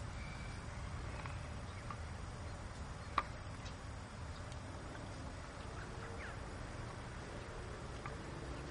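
Haflinger horses grazing: scattered soft clicks of grass being bitten and hooves shifting on turf over a steady low rumble, with a few faint bird chirps and one sharper click about three seconds in.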